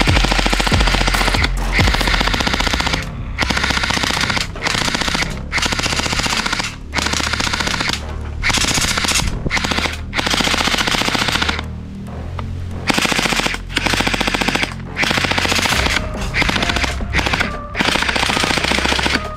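AK47-style electric gel-bead blaster firing in repeated full-auto bursts, about ten runs of rapid shots one to two seconds long with short pauses between.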